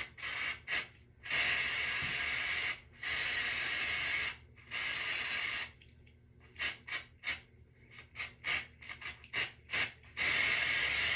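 Aerosol lace tinting spray (Kiss medium dark brown) hissing from the can in three long bursts, then a quick run of short puffs, then one more long burst near the end. It is being sprayed onto a wig's lace to tint it.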